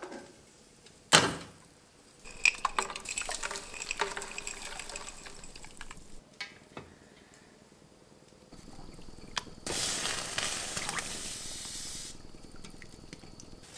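A sharp knock on a pot, then alum crystals and powder rattling and clinking as they are tipped from a plastic tub into a pot of water. Near the end comes a couple of seconds of water rushing and sloshing in the pot.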